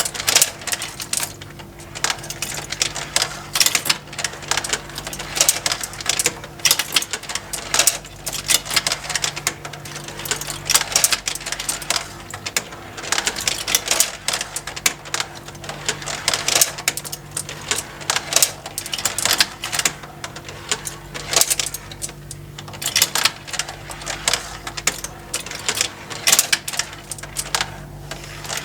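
Motorized plastic marble run: glass marbles clattering and clicking down plastic tracks as plastic conveyors lift them up again, a dense, irregular rattle over a steady low motor hum.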